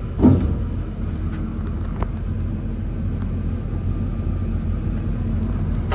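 Diesel locomotive engine running with a steady low drone. A short thump comes just after the start, and a faint click about two seconds in.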